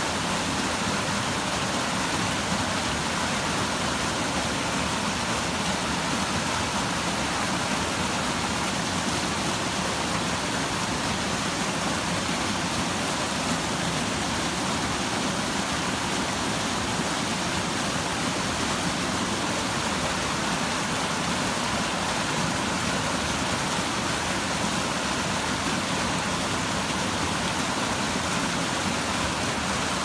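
Mountain stream running steadily: a continuous, even rush of water.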